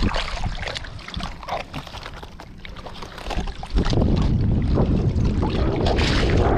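Water sloshing and splashing with scattered small clicks; about four seconds in, a loud low rumble on the microphone sets in and holds.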